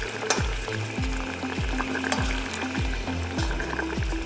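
Water boiling hard in a small stainless-steel saucepan of snow peas, a fork stirring and prodding them with light clicks against the pan. Background music with a steady beat runs underneath.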